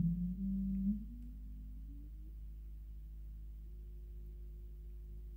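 Electronic oscillator tones from the signals driving the CRT's deflection: a loud low tone that glides up in pitch and drops away sharply about a second in, then a faint steady tone that steps slowly upward, over a low steady hum.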